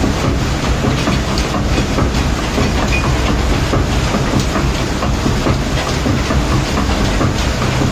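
A machine's engine running steadily with a low hum and a constant, irregular clicking clatter over it. This is the strange noise from inside the machine that the owner finds alarming.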